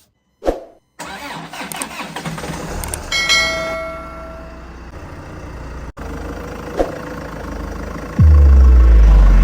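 A car door thuds shut, a warning chime sounds, and the Land Rover Discovery's 2.2 diesel engine starts and runs. Loud music comes in suddenly near the end.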